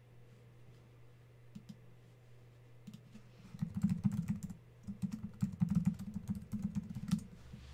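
Typing on a computer keyboard: a few scattered keystrokes, then a quick run of rapid keystrokes from about three and a half seconds in to about seven seconds.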